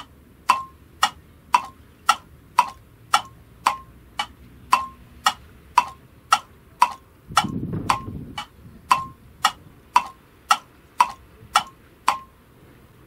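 Steady clock ticking, about two even ticks a second, that stops near the end. A brief low rumble comes a little past the middle.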